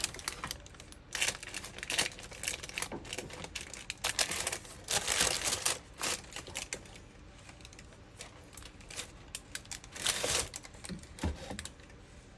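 Wax paper crinkling and rustling in irregular bursts as a spoon presses sticky fruit cake mixture down into a paper-lined box.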